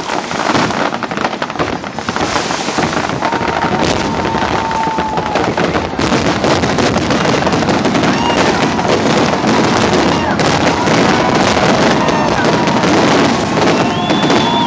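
Aerial fireworks shells bursting and crackling in a dense, continuous barrage.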